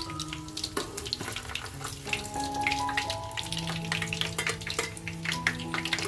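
Pork sausages frying in hot pork lard in a pan, with a dense, steady crackle and spitting of many small pops. Background music with held notes plays underneath.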